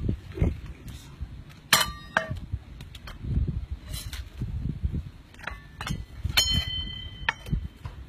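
Metal cookware and utensils clanking: two ringing metallic strikes, one about two seconds in and one about six and a half seconds in, with lighter knocks and clicks between them.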